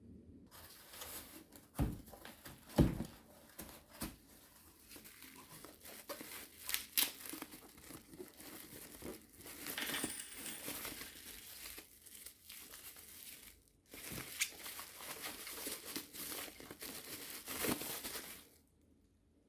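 Packaging being crinkled and torn while a soundbar is unboxed, an irregular rustling with a couple of sharp knocks about two and three seconds in.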